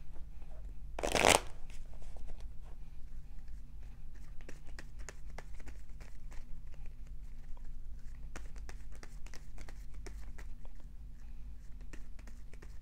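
A tarot deck being shuffled by hand: a quick run of small card flicks and clicks, with one short, loud rustle of the cards about a second in.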